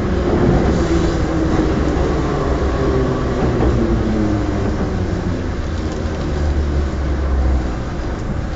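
Metro train heard from inside the carriage, running with a heavy low rumble and a hum that falls slowly in pitch as the train slows into a station. The rumble dies away near the end as it comes to a stop.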